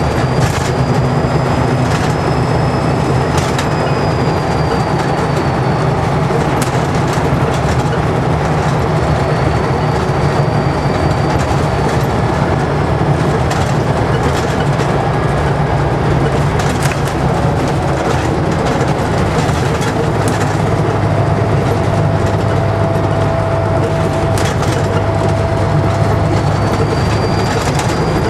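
Scania N94UD double-decker bus's 9-litre five-cylinder diesel pulling under way, with its turbocharger whistling. The high whistle swells and fades several times over a steady engine drone and rattles from the bus body.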